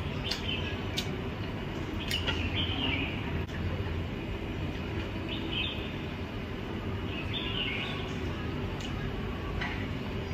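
Eating sounds: chewing and short crunchy bites of fried dried fish and rice eaten by hand, with scattered sharp clicks, over a steady low hum.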